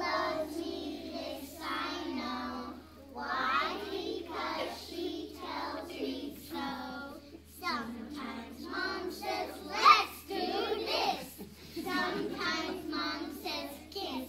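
A class of preschool children singing a song together in unison, in phrases, with one voice briefly louder about ten seconds in.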